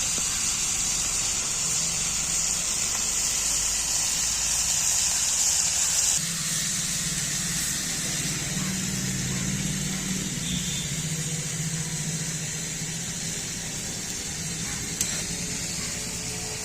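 Fish frying in hot oil: a steady sizzle that changes abruptly about six seconds in and is quieter after.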